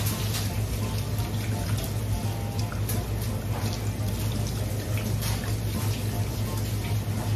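Water running steadily from a hose onto a cutting board while hands rub and scrape the slime off an eel's skin, after the eel has been scalded with boiling water. A steady low hum runs underneath.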